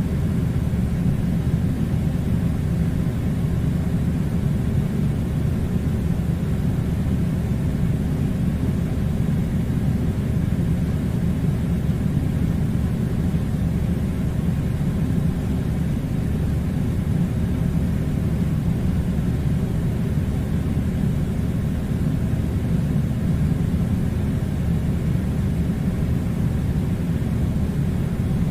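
Air conditioner running with a steady low rumbling hum and no breaks.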